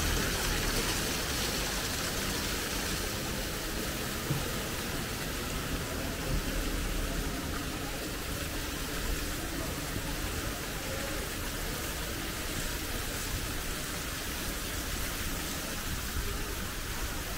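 Steady rush of hot spring water running through the Yubatake's wooden troughs.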